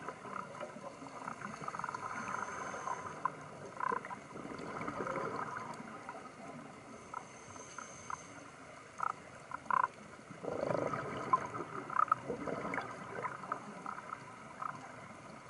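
Underwater sound picked up by a diver's camera: a gurgling, bubbling wash with scattered small clicks. It swells twice, about four seconds in and again past the ten-second mark, as from a scuba diver's exhaled bubbles.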